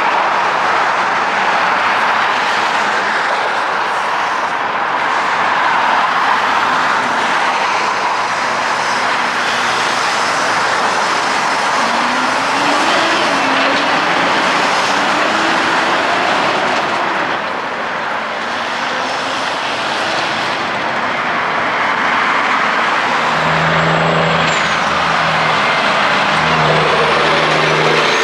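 Semi-truck diesel engines and heavy highway traffic going by close at hand, with steady tyre and road noise. Partway through, a truck engine's pitch climbs in steps as it pulls away through the gears, and near the end a deep, steady engine note comes in close by.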